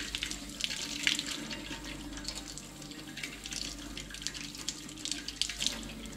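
Water running from a tap and splashing, with irregular small spatters.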